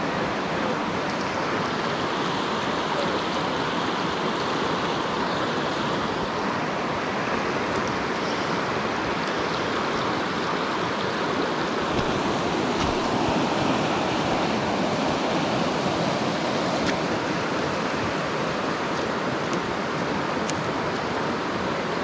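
Steady rush of a rocky mountain river running over stones in shallow riffles and rapids.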